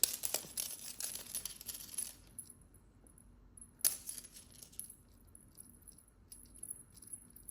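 Cat teaser wand toy jingling and rattling with a light metallic sound as a kitten plays with it, busy for the first two seconds or so, then a single sharp clink about four seconds in.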